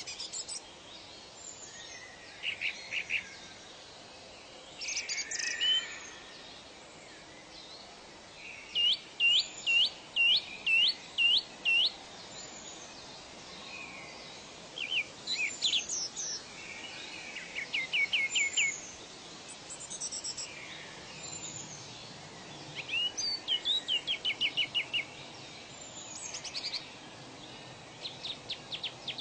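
Several birds singing in turn: phrases of quick repeated chirps and short trills, the loudest a run of about seven rising notes a little under ten seconds in, over a faint steady background hiss.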